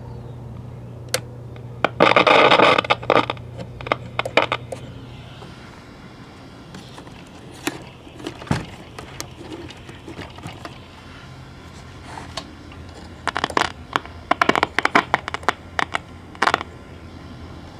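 A 1960s General Electric World Monitor multiband transistor radio, just powered up and only partly working, putting out a steady low hum. Bursts of scratchy crackling come about two seconds in and again near the end, while the tuning dial is being turned.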